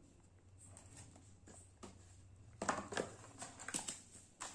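Clicks and crinkly rustling of a new smartphone and its packaging being handled, sparse at first and growing busier about two and a half seconds in.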